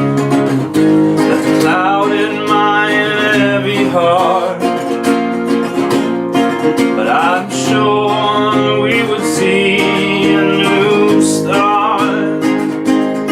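Strummed acoustic guitar playing steady chords in an instrumental passage of a folk-rock song, with a melody line weaving over it.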